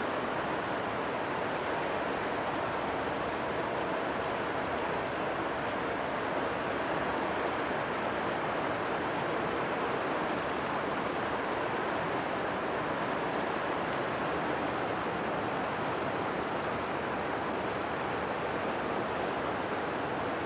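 Steady rushing of river water as a loaded tanker barge passes, with its bow wash churning; no distinct engine note stands out.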